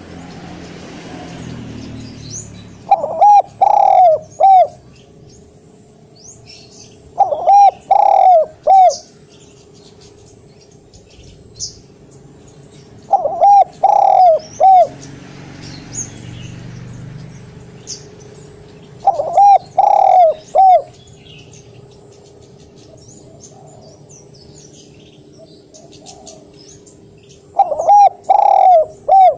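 Spotted dove cooing loudly, five call phrases of about four notes each, a few seconds apart. Faint chirps of other birds behind.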